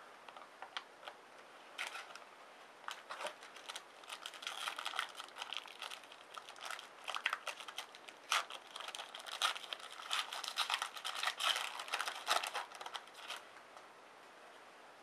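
Crinkling and tearing of a foil trading-card pack wrapper as it is opened and handled, with the cards inside being handled. Irregular crackles, sparse at first, then dense, stopping near the end.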